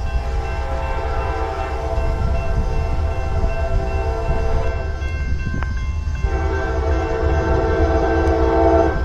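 Freight locomotive air horn sounding several notes together over a steady low rumble of the passing train. It blows a long blast, breaks off about six seconds in, then comes back louder.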